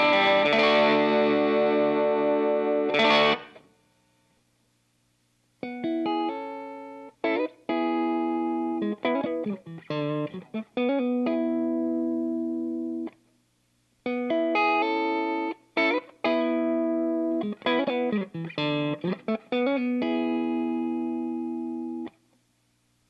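Electric guitar played through an MXR Sugar Drive overdrive pedal: a thick, dense chord passage that cuts off about three seconds in, then, after a short pause, two phrases of ringing chords and single notes.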